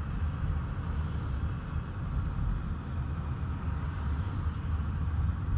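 Steady low rumble of road and engine noise inside a car's cabin while driving on an expressway.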